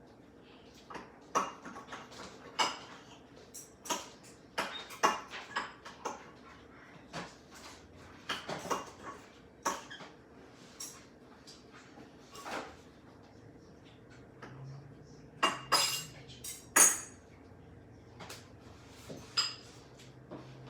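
Dishes and cutlery clinking and knocking in irregular, sharp taps, with a louder cluster of clinks about three-quarters of the way through.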